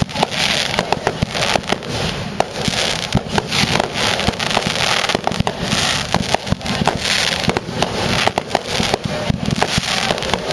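Fireworks display: aerial shells bursting in rapid succession, dense sharp bangs several a second over continuous crackling.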